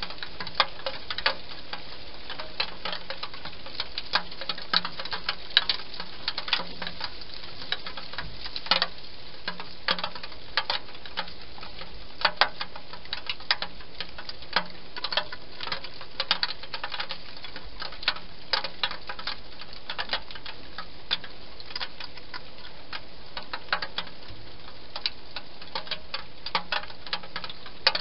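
Wild hedgehog eating dry food inside a plastic feeding box: irregular crisp clicks and crunches, several a second, over a steady hiss.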